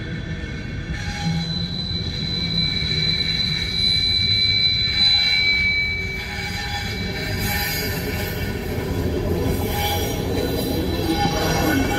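Approaching train with its wheels squealing on the rails in a high, steady tone from about a second in, and rumble and clatter building as it nears.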